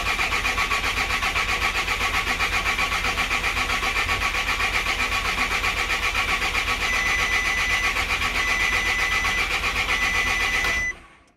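A VW Golf Mk5's 1.9 TDI four-cylinder diesel is cranked on its starter motor for about eleven seconds in a steady, evenly pulsing churn, then stops suddenly when the key is let go. It is not heard firing: the engine has just had its camshaft replaced and the cam timing is not yet set, and it won't start. An electronic beep sounds three times, each about a second long, in the second half.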